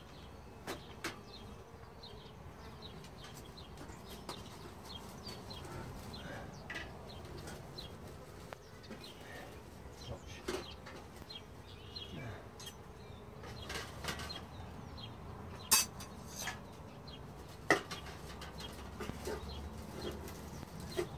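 Honeybees flying and buzzing around an open hive, with scattered clicks and knocks from hive equipment being handled. Two sharp knocks stand out about three-quarters of the way through.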